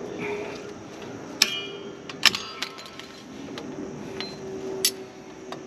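Metal brake spring tools clinking against each other and the drum brake hardware. There are a few sharp metallic clinks with brief ringing, the loudest about a second and a half and two and a quarter seconds in, and lighter ticks between them.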